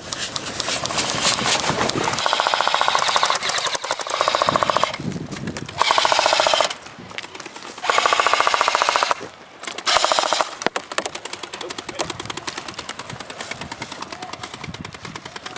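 Airsoft guns firing on full auto: rapid bursts of shots, the loudest lasting one to three seconds, over the first ten seconds or so, then quieter, more scattered fire.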